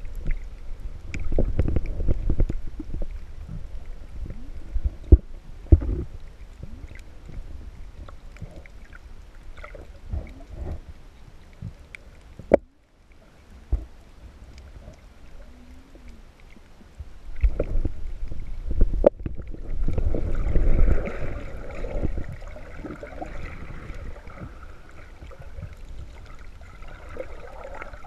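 Underwater sound just below the surface: uneven low water rumbling and sloshing with scattered sharp knocks and pops, which the uploader says come from the small territorial reef fish attacking the camera to defend its patch of coral. A steady higher drone joins in about two-thirds of the way through.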